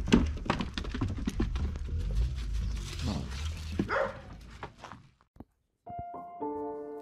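Dogs moving about with scuffs, knocks and clatter over a low rumble, and a short rising whine about four seconds in. Near the end the sound cuts out briefly, then gentle piano music begins.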